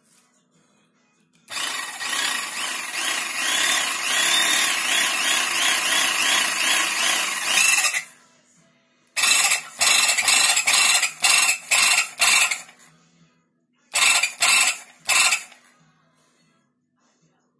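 Electric hydraulic pump motor running for about six seconds, then switched on and off from its pendant in several short bursts, and three more near the end, as it pressurises a 15-ton Enerpac hollow-plunger hydraulic cylinder.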